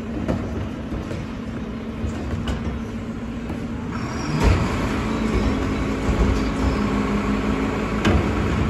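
Mack LEU garbage truck's engine running steadily at the curb. About four and a half seconds in a loud bang is heard, and the engine then runs louder with a stronger steady hum, with another bang near the end.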